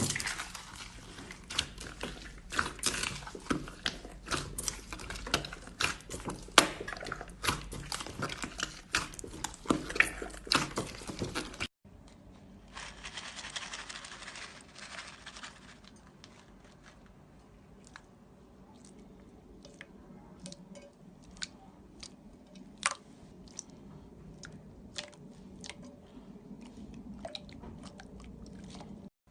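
Slime being squeezed and pressed, giving dense crackling and popping clicks. After a sudden cut about twelve seconds in, the clicks become quieter and sparser, with a short hiss.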